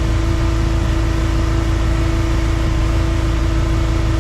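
Boat's outboard motor running steadily under throttle, a constant hum over a heavy low rumble.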